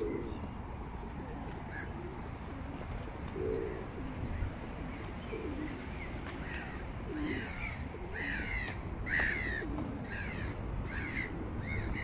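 Feral pigeons cooing low every second or two, joined in the second half by another bird giving a run of about eight sharp, falling calls under a second apart, over a steady low rumble.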